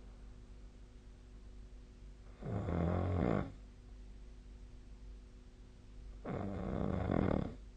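A person snoring in sleep: two snores, each about a second long, roughly four seconds apart.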